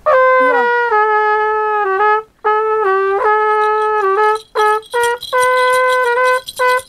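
Solo trumpet playing a slow serenade tune: long held notes in phrases, with a run of short notes in the middle and brief breaks between phrases.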